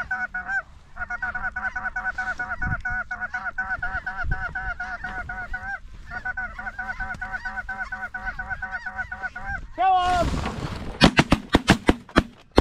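Snow goose calls repeating rapidly and evenly, about four a second, with two short breaks. Near the end comes a rush of noise, then a fast volley of about eight shotgun shots.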